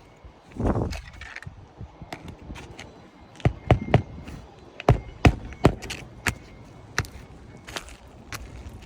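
Sharp knocks and taps on an asphalt-shingle roof as a replacement shingle is worked into place, some in quick groups of two or three, after a short scraping rustle about a second in.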